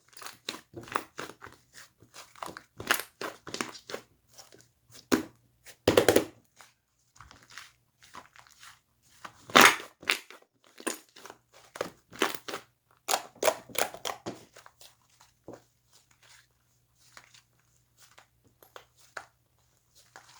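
Slime being squeezed and pressed by hand, giving an irregular string of crackles and pops, loudest about 6 and 10 seconds in, then sparser near the end. A faint steady low hum runs underneath.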